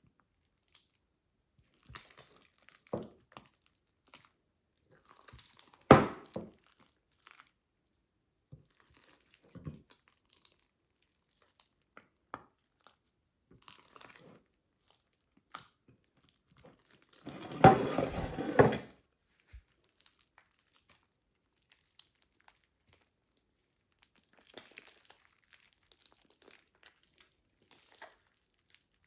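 Plastic bag crinkling as slime is squeezed and worked in it by hand, in scattered short crackles. There is one sharp loud crackle about six seconds in and a longer, louder burst of crinkling about two-thirds of the way through.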